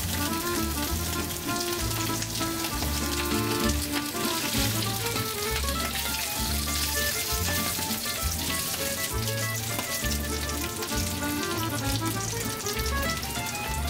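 Sausage and potato slices sizzling steadily in a hot, oiled frying pan, under background music with a melody and bass line.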